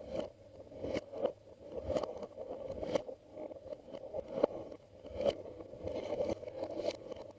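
Glossy slime being worked and squished by hand, with sticky wet clicks and pops about once a second.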